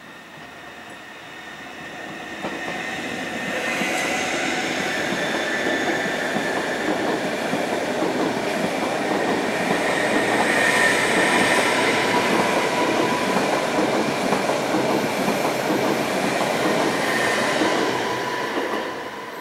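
TILO RABe 524 (Stadler FLIRT) electric multiple unit passing over a level crossing. Its running noise builds from about two seconds in, holds loud with a steady high whine over the rumble, and fades near the end.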